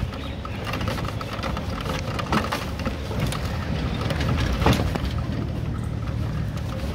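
A vehicle's engine running with a steady low rumble as it travels, heard from on board, with loose rattling throughout and two sharper knocks, one about two and a half seconds in and a louder one near five seconds.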